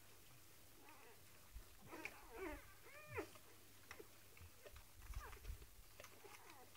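Seven-day-old Rhodesian Ridgeback puppies squeaking and whimpering while they nurse: short high calls that rise and fall, a cluster about two to three seconds in and fainter ones later, with a few faint clicks between.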